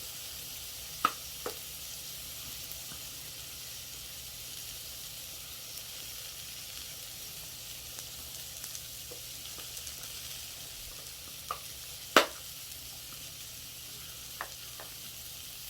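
Vegetables sautéing in butter in a hot pan, sizzling steadily. A few light clicks, and one sharper, louder click about twelve seconds in.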